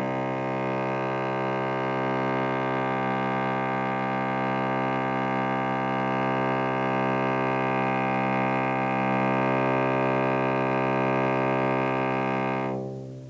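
Cello playing one long sustained note of steady pitch and even loudness, drawn for about thirteen seconds as a single spun sound. It fades away just before the end.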